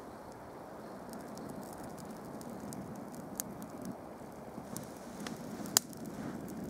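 Small tinder-bundle fire burning with a steady hiss and scattered crackles, one sharper pop near the end.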